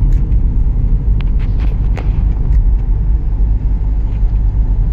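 Steady low road rumble inside a moving car's cabin, with a few light ticks about one to two seconds in.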